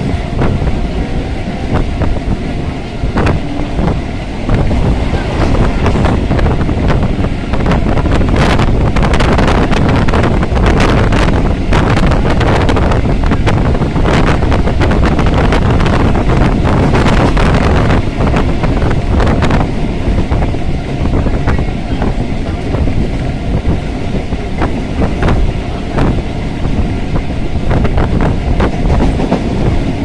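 Suburban electric local train running at speed, heard at an open carriage window: a steady rumble of wheels on the rails with wind buffeting the microphone. A stretch of rapid clacking and rattling runs through the middle.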